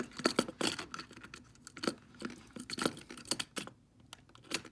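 Handling noise from a hand fumbling close to the microphone: irregular sharp clicks and scrapes, several a second, with a short lull shortly before the end.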